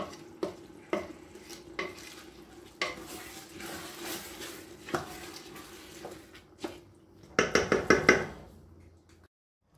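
Wooden spoon stirring and scraping rice in a stainless steel pot, knocking against the side now and then. A louder stretch of scraping and clatter comes near the end, and the sound cuts off suddenly just before the end.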